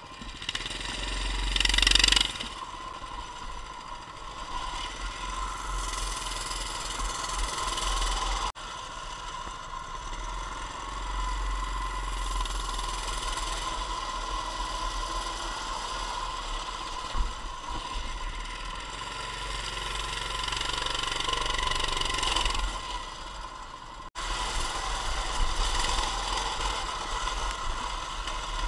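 Coleman CT200U mini bike's small single-cylinder engine running while being ridden, rising sharply in level about two seconds in, then holding a steady drone. The owner says it is running poorly and won't idle.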